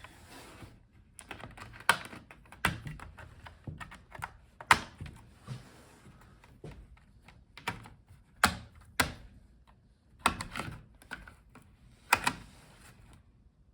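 Clips of a Lenovo Yoga 6 13ALC7 laptop's bottom cover snapping loose one by one as a plastic pry tool works around the edge, with scraping between the snaps. About seven sharp clicks come at uneven intervals.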